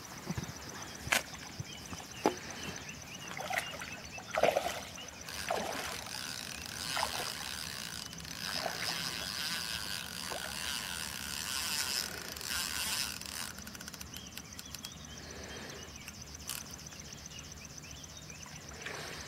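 Hooked grass carp splashing and swirling at the water's surface as it fights on the line, with irregular sloshes and a couple of sharp clicks in the first few seconds.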